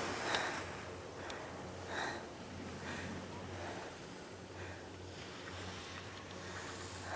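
Quiet outdoor stillness with a few soft, short puffs close to the microphone over a faint steady low hum.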